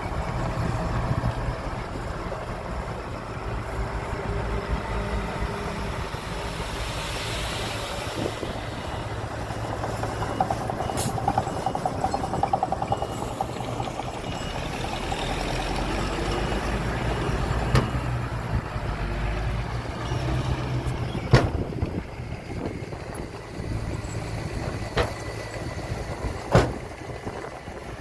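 Diesel engines of heavy earthmoving machinery running steadily, with a few sharp knocks; the loudest two come about three-quarters of the way through and near the end.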